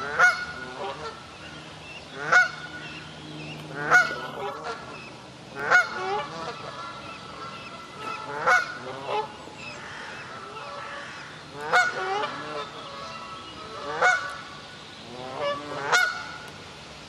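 Adult Canada goose honking repeatedly, a loud call about every two seconds, some in quick pairs: calling for its lost goslings.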